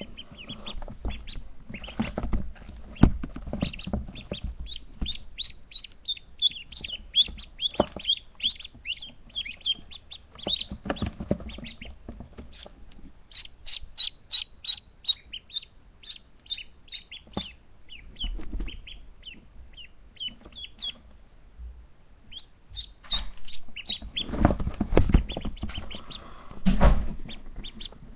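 Week-old ducklings peeping, a quick run of short high-pitched peeps several a second that pauses briefly near the end. Rustling and low knocks run underneath and are loudest near the end.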